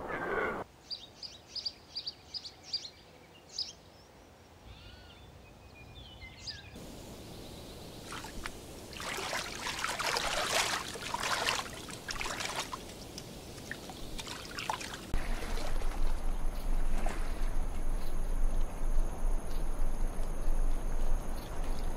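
Shallow river water splashing and trickling around wading grizzly bears, with the loudest splashes in the middle. Before it come a few short high chirps. In the last third a louder steady rushing noise takes over, with a low hum underneath.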